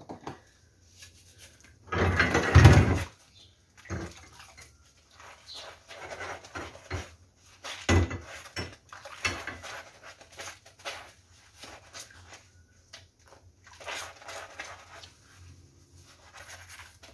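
A worn kitchen sponge scrubbing greasy cooktop grates in soapy water, in irregular strokes with light knocks of the metal; a louder sound lasting about a second comes two seconds in.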